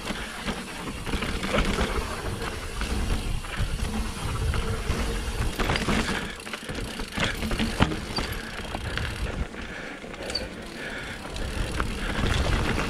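Mountain bike riding a dirt trail: a steady low rumble of tyre and wind noise, with frequent clicks and knocks as the bike rattles over bumps.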